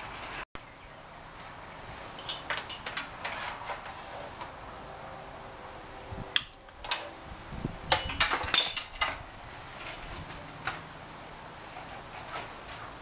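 Irregular clicks, taps and rustling from hands handling wires and small metal parts and tools while wiring a car's engine bay, in two busier clusters.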